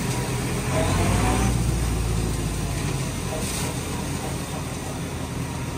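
Tractor-driven straw blower running steadily, its fan throwing chopped straw bedding through the chute, over the tractor engine's low hum; a little louder for a second or two about a second in.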